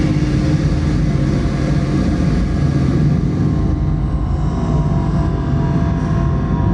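Live electronic noise music: a loud, dense rumbling drone of distortion with a heavy low end. In the second half the high hiss thins out and a few thin steady tones come in above the rumble.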